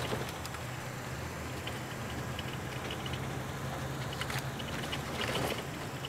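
Steady road and engine hum inside a moving car's cabin: a low drone under tyre noise. Scattered light clicks and rattles, busiest about four to five and a half seconds in.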